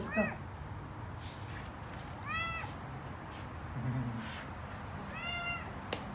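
Orange tabby cat meowing three times: a short call at the start, then two longer calls about three seconds apart, each rising and then falling in pitch.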